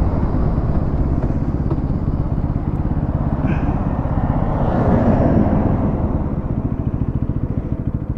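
Bajaj Pulsar NS200's single-cylinder engine running at low revs as the bike slows down, with wind rush on the helmet microphone. Over the last couple of seconds the engine's separate firing pulses become distinct as the revs drop.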